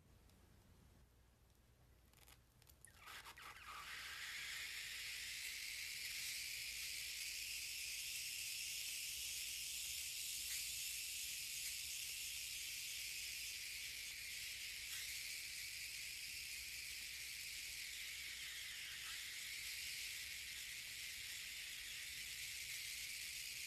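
Toy aeolipile (Hero's steam engine) blowing steam from its spinning nozzles: it sputters and squeals briefly as the steam starts escaping about two to three seconds in, then settles into a steady high hiss.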